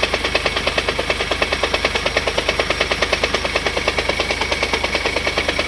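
Running vehicle with a fast, even knocking rattle, about a dozen knocks a second, coming from a noisy gearbox. The knock the owner took for loose valves is worn gearbox bearings that need replacing.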